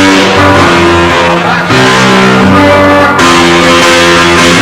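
Electric guitar playing sustained, strummed chords with the band, loud, the chord changing about every second and a half.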